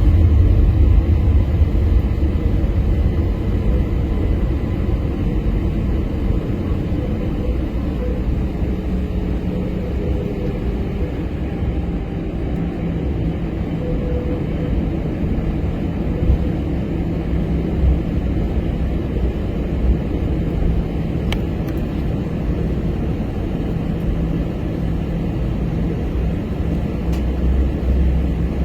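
Airbus A321 cabin noise: a steady, heavy low rumble of the jet engines and airframe, heard from inside the passenger cabin.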